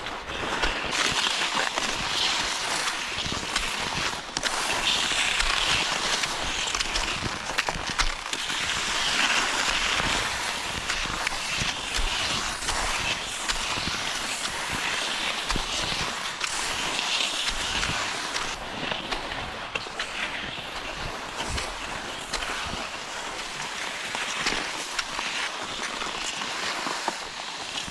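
Cross-country skis sliding and scraping over a packed snow trail: a steady rough hiss that swells and eases with the strides, with occasional sharp clicks and crunches.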